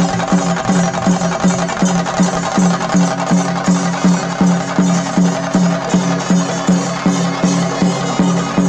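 Chenda drums beaten together with sticks in a fast, steady beat of about three strokes a second, each stroke carrying a ringing drumhead tone.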